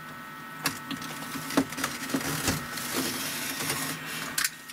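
Utility knife cutting through the thin holding tabs of a milled 2 mm FR4 fibreglass sheet: irregular scraping cuts and sharp clicks about a second apart, over a steady low hum.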